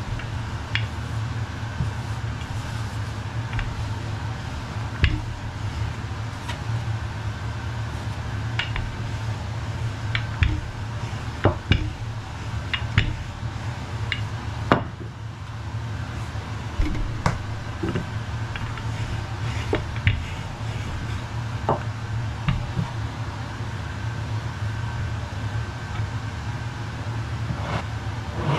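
Wooden rolling pin rolling out shortcrust pastry on a worktop, with scattered knocks and clicks as the pin is set down and worked over the dough. A steady low hum runs underneath.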